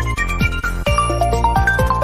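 Electronic smartphone ringtone tune: a quick melody of short bell-like notes over a steady bass and a kick-drum beat of about two a second.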